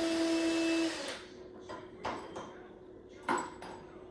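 A power drill runs for about a second and stops, as shelf hardware is taken off the wall; then come a few light clinks and knocks of metal and wood being handled.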